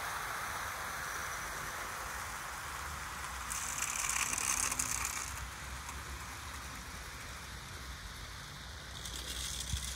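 OO gauge model trains running on a garden layout, their wheels rattling and clicking along the track over a low motor hum. The clatter grows louder for a couple of seconds about four seconds in and again near the end.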